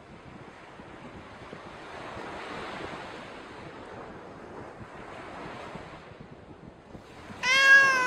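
Sea surf washing up over sand: a steady rushing that swells and eases. Near the end a single loud, drawn-out animal call, about half a second long, cuts in over it and is the loudest sound.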